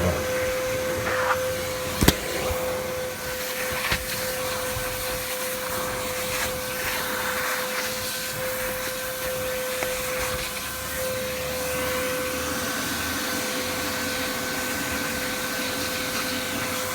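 Nilfisk Buddy II wet-and-dry vacuum cleaner running loud and steady, a constant whine over a rushing hiss of sucked air. There is a sharp knock about two seconds in and a lighter one about four seconds in.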